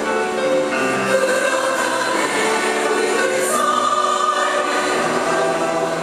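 Large women's choir singing a Korean Buddhist choral song in harmony, with long held notes.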